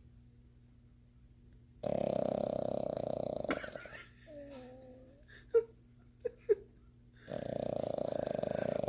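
Boston terrier snoring: two long, rattling snores a few seconds apart. In the pause between them there is a short wavering hum and three sharp clicks.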